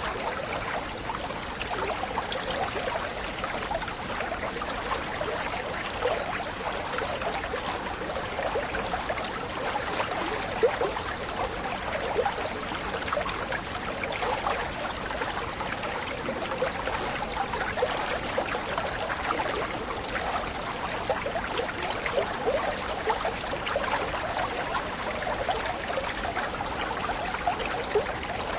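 Water of a waterfall rushing steadily over rocks at its top, a continuous even wash of noise.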